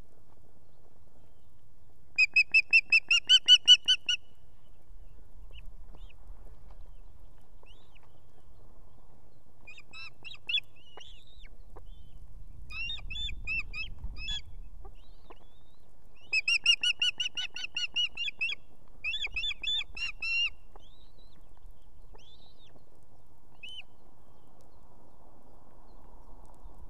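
Ospreys calling in fast series of high, piping whistled notes, about five a second. A loud bout of about two seconds comes near the start and another about two-thirds of the way through, with quieter, shorter series between.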